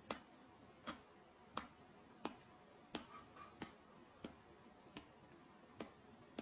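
A series of sharp clicks at a slow, fairly even pace, about three every two seconds, over faint hiss.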